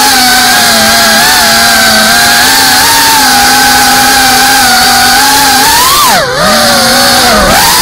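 FPV racing quadcopter's electric motors whining at a steady pitch, picked up close by the drone's own camera. The pitch dips and climbs back twice near the end.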